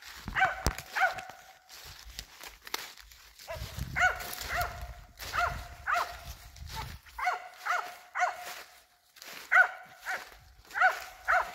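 A squirrel-hunting dog barking repeatedly: about a dozen short, sharp barks, mostly in quick runs of two or three with brief pauses between them.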